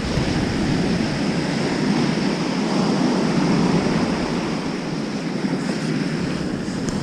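Heavy surf breaking and washing up a sandy beach in a steady rush, with the high waves close by.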